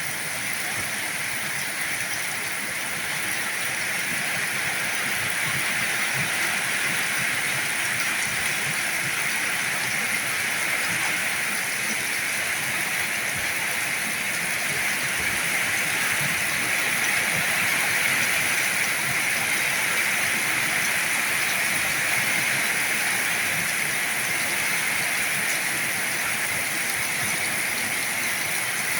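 Heavy rain falling in a steady, dense hiss, swelling slightly about halfway through.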